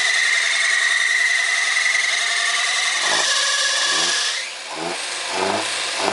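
Chevrolet Corsa engine's alternator accessory belt squealing in a high, steady tone just after starting, with the engine running beneath. The squeal dies away about four seconds in. The belt is slipping, which the mechanic takes for a belt that is a little loose.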